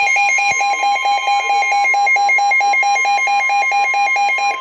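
Broadcast emergency weather alert tone: rapid electronic beeping, about eight beeps a second, over a steady high tone.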